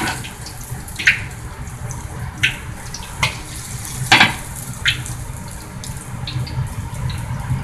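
Oil sizzling steadily in a wok around three frying egg foo young patties, while a metal ladle clinks and scrapes against the wok several times, loudest about four seconds in, as hot oil is spooned over them.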